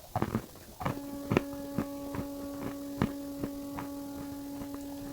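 Dry pink clay being bitten and chewed close to the microphone, in irregular sharp crunches about two a second. Under them is a steady electrical hum that starts about a second in.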